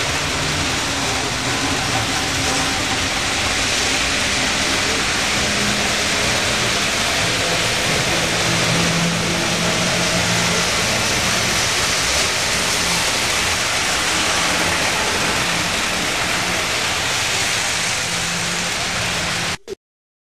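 Model trains running on the layout: a steady rolling rumble with motor hum under an even hiss, which cuts off suddenly near the end.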